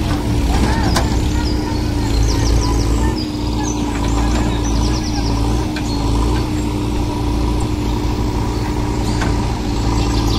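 Diesel engines of a tractor and a backhoe loader running steadily under load as the backhoe's bucket pushes a sugarcane trolley bogged in water. Birds chirp a few times in the middle.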